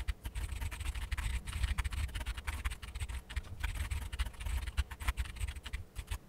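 Rapid typing on a computer keyboard: a dense, irregular clatter of key clicks.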